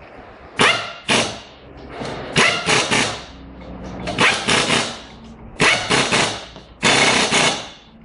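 Pneumatic impact wrench rattling in a series of short bursts, driving bolts at the car's rear wheel hub. The last burst is the longest.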